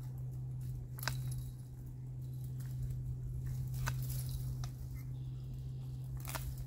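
Hand loppers cutting dry brush stems, with sharp snips about a second, four seconds and six seconds in, and light rustling of dry twigs between.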